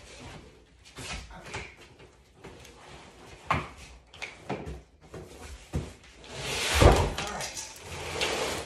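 A large, heavy cardboard table box being tipped over and pushed on a hard floor: cardboard creaking and scraping with scattered knocks, then a loud heavy thud about seven seconds in as it comes down, followed by the box scraping along the floor.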